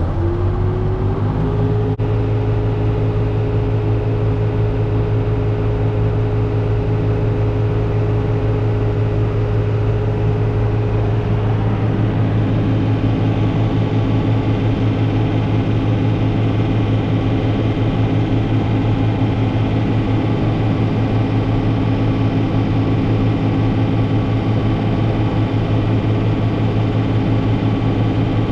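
Tractor engine driving a PTO-powered silage blower at the silo, running steadily. A whine rises in pitch over the first second or so, then holds level.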